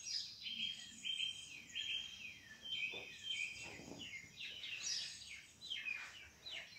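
Songbirds chirping outdoors: a continuous run of many short, high chirps, several sliding down in pitch. A couple of soft rustles of cushions and clothing as a person shifts on them about three to four seconds in.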